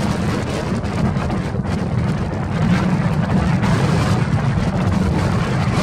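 Strong gusting wind buffeting the microphone: a loud, steady low rumble with a hiss over it.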